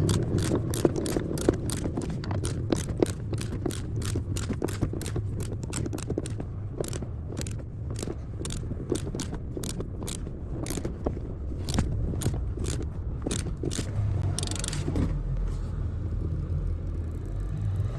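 Ratchet spanner clicking in a long run, about three or four clicks a second, as a seatbelt anchor bolt is tightened. A short scrape comes late on.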